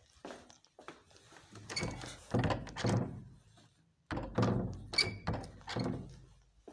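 A panelled door thudding and rattling in its frame as it is pushed and tugged, in two bouts of knocks with a short pause between them; the door is locked.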